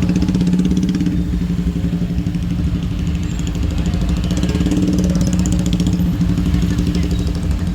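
Motorbike engines running in street traffic, a steady engine hum.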